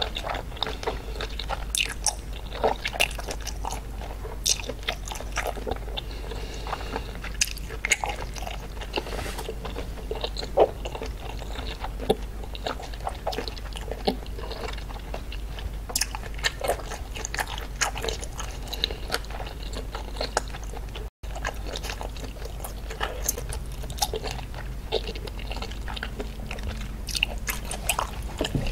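Close-miked chewing of a mouthful of seafood with the lips closed: a steady run of wet smacks, squelches and sharp mouth clicks, over a steady low hum.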